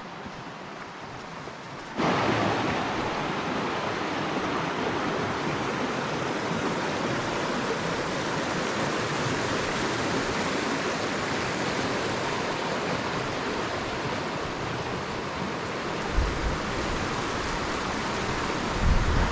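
Creek water rushing over rocks: a steady noise that comes in abruptly and loud about two seconds in, over a softer hiss before it, with two short low thuds near the end.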